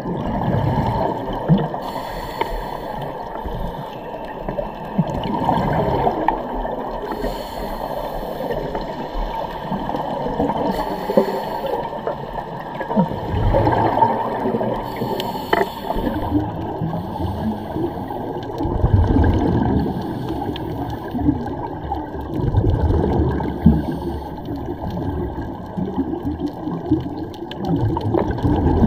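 Muffled underwater sound of scuba divers' regulator exhaust bubbles gurgling, swelling in surges every few seconds as the divers exhale.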